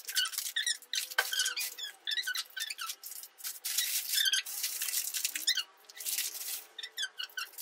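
Plastic and foil chocolate wrappers crinkling and rustling in bursts as packets are pulled out of a plastic bag and handled.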